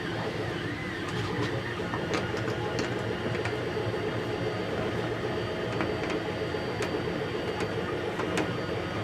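3D printer running: its stepper motors whine in steadily shifting, warbling tones, with scattered light clicks.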